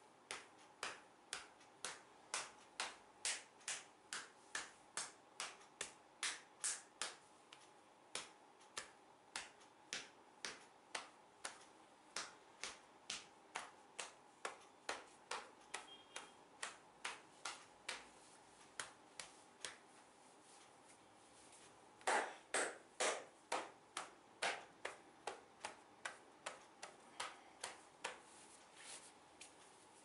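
Percussive back massage: hands striking the back through a shirt in a steady rhythm, about two to three sharp slaps a second. The strikes pause for about two seconds near the two-thirds mark, then resume louder.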